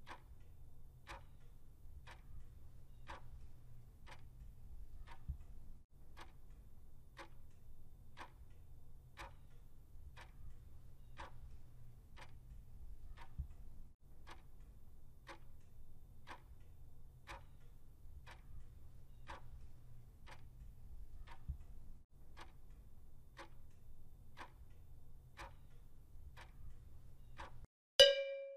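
Countdown-timer clock ticking about once a second over a faint low hum. Near the end the ticking stops and a short, loud chime sounds, marking the correct answer.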